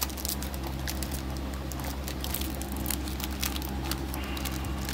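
Foil wrapper of a Pokémon Astral Radiance booster pack crinkling and crackling as it is torn open and handled, many small sharp crackles in quick succession.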